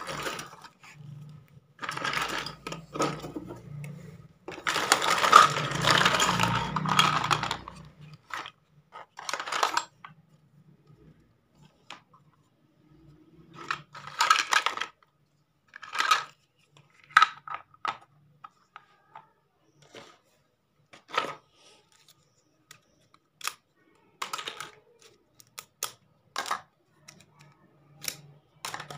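Small plastic toy kitchen pieces clattering and clicking against each other as hands rummage through a heap and pick pieces out. The clatter is densest in the first several seconds, then breaks into scattered single knocks and clicks.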